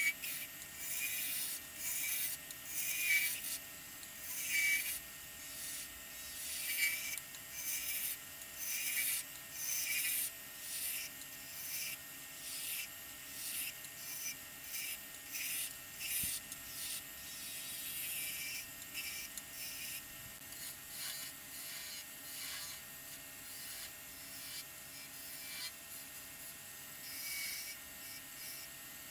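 Turning tool cutting a spinning cherry spindle on a wood lathe: a hissing shaving cut about once a second as the tool passes along the wood, over the lathe's faint steady hum. The cuts grow softer in the second half.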